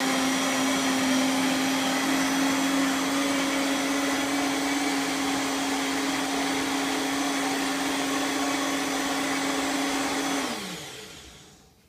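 Countertop blender motor running steadily, then switched off about ten and a half seconds in, its pitch falling as the motor spins down to a stop.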